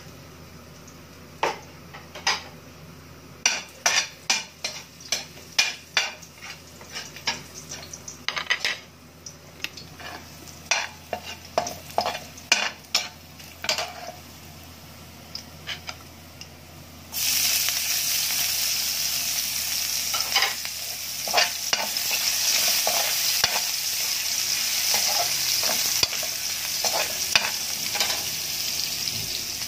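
A metal spoon scraping and clinking in a metal wok as chopped garlic is stirred in hot oil, in separate short strokes. A little past halfway a loud, steady sizzle starts suddenly as sliced onions go into the oil, and the stirring strokes go on over it.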